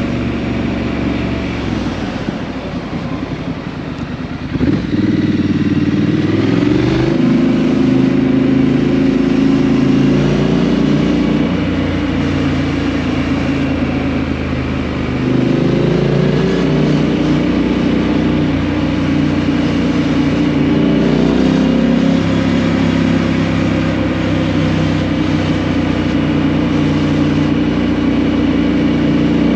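2018 Triumph Street Scrambler 900's parallel-twin engine through a Vance & Hines exhaust, running under way on the road. The throttle eases off a few seconds in and opens again about five seconds in, with the engine pitch climbing again about halfway and two-thirds through.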